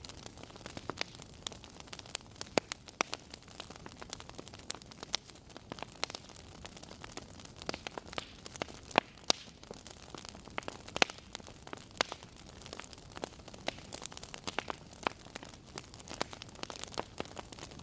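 Wood fire crackling in a fireplace: a soft hiss with irregular sharp pops and snaps, a few louder ones.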